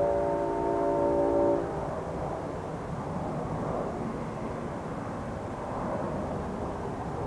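A train horn sounds a chord of several steady notes, cutting off about two seconds in, followed by a steady rumble.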